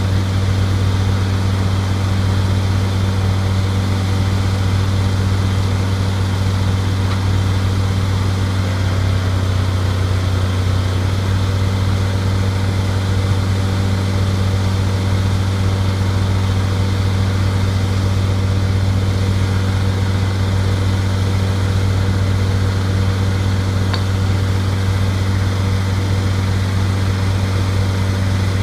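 Bobcat skid-steer loader's engine running at a steady speed, a loud even low hum with no revving.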